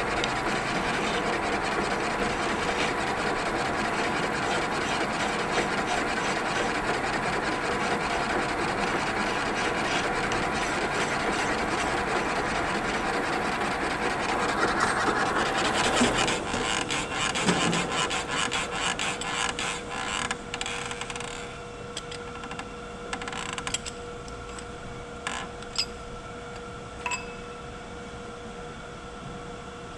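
Lathe cutting a turning workpiece, a steady rough scraping noise. About 16 seconds in the cut breaks off into uneven scrapes and knocks, and the lathe then runs on more quietly with a steady hum and a few sharp clicks.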